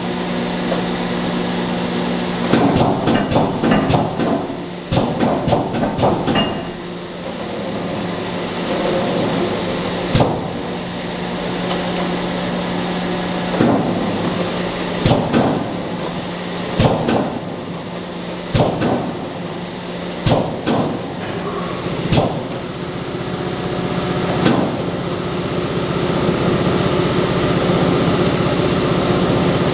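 Amada TP-110C 110-ton C-frame mechanical press running on a test run: a steady motor hum with a sharp knock at each stroke, about every one and a half to two seconds, and a flurry of rattling knocks a few seconds in. Near the end the hum grows louder.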